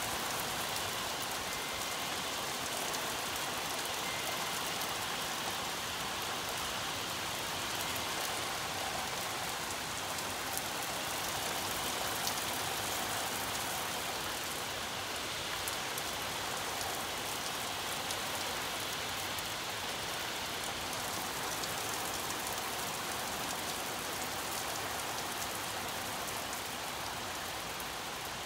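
Heavy rain falling steadily: a dense, even hiss with many small drop impacts.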